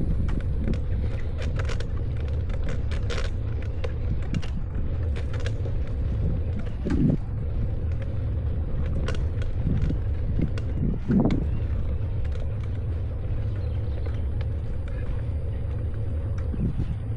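Steady low rumble of a bicycle ride on a road, with wind and road noise and scattered light clicks and rattles from the bike.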